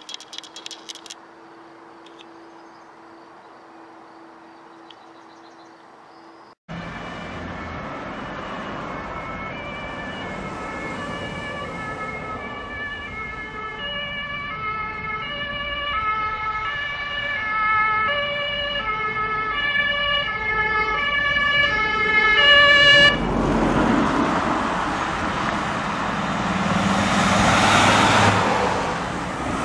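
German two-tone emergency-vehicle sirens from a convoy of ambulances, stepping back and forth between two pitches for about a quarter of a minute, after a quiet stretch with a faint hum at the start. The sirens cut off abruptly, and the noise of the vehicles driving by close takes over.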